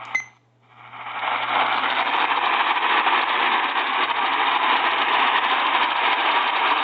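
Radio receiver static: after a brief click, a steady hiss swells up over about a second and holds, with a low hum beneath it and no program audio.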